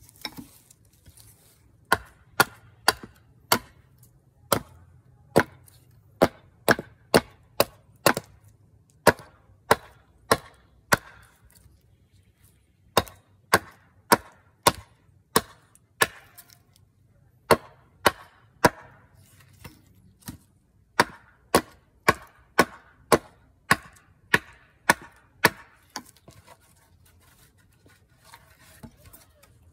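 Gränsfors Bruk small carving hatchet chopping into redwood: a long series of sharp chopping strikes, about two a second in runs with short pauses, as the wing blank is rounded off.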